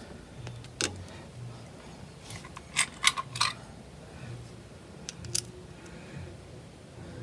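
Sharp clicks and taps of a turn signal switch and small metal parts being handled and seated in a steering column: one click, then three quick louder clicks about three seconds in, and two faint ticks later.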